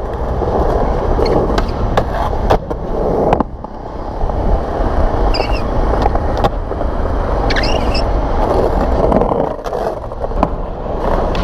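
Skateboard wheels rolling on smooth concrete with a steady rumble, broken by several sharp clacks of the board hitting the ground as the skater pops tricks.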